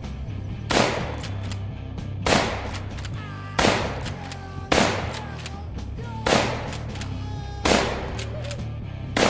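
Black Aces Tactical Pro Series L lever-action 12 gauge shotgun fired seven times in a rapid string, about a second and a half apart. Each shot is followed by a short tail, and there are smaller clacks of the lever being cycled between shots. Background music runs underneath.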